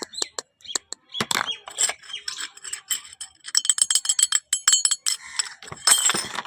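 Small hard items being handled during an unboxing, a rapid run of clicks, taps and clinks, with a brief high, chime-like ringing about four to five seconds in.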